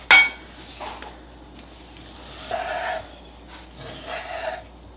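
Kitchen knife slicing a raw ahi tuna loin on a wooden cutting board. Just after the start there is a sharp clack that rings briefly. Two longer, steady-pitched sounds follow, about two and a half and four seconds in.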